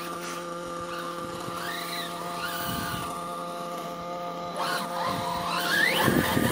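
Radio-controlled monster truck's motor whining steadily as it drives over packed snow, rising in pitch and getting louder as it speeds up near the end.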